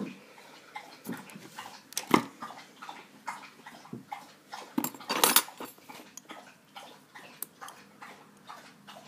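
A dog making a run of short, irregular, noisy sounds close by, the loudest about two seconds in and again about five seconds in.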